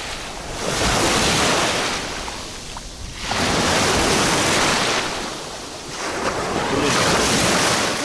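Small sea waves breaking and washing up the beach right at the waterline, surging and drawing back about three times.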